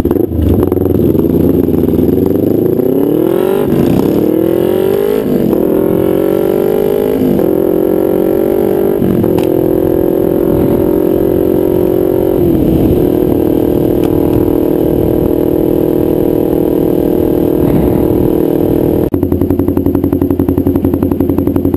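2012 Kawasaki Ninja 250R's parallel-twin engine through a nearly straight-piped DanMoto XG-1 exhaust, accelerating hard up through about five gears, the pitch climbing through each gear and dropping at each shift. It then holds a steady cruise, and near the end the note turns to a rapid pulsing.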